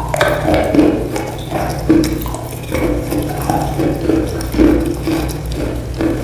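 Close-up chewing of wet chalk: moist, crunchy bites repeating steadily about two to three times a second over a low, steady hum.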